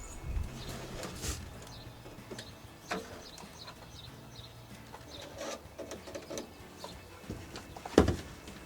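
Scraper tool spreading wood glue into a countertop's trim channel: light scrapes and small taps, with a sharper knock near the end.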